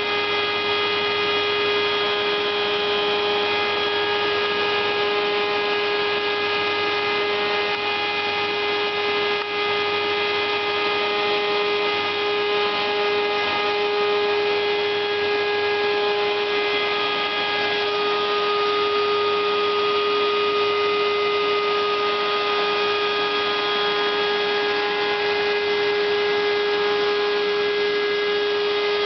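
A homemade CNC router's spindle motor running steadily with an even, high whine that holds one pitch throughout.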